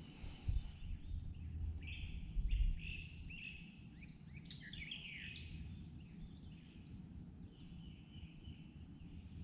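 Wild birds calling, a run of chirps and quick downward-sweeping notes in the first half, over a steady high insect drone. Two low thumps, about half a second in and at about two and a half seconds, are the loudest sounds.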